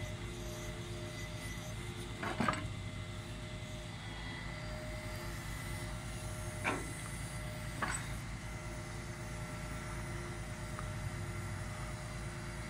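Boom truck's diesel engine running steadily with a low hum, and three short knocks: one a couple of seconds in and two more close together later on.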